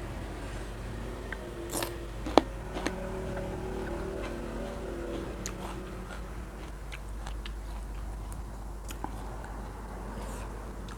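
Close-up eating sounds: chewing with scattered small clicks and crunches, the sharpest click a little over two seconds in, over a steady low background hum.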